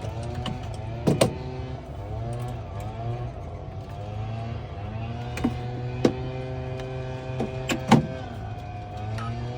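Computerized key-cutting machine cutting a test key: its motors whine in shifting, gliding pitches over a steady low hum, with several sharp clicks.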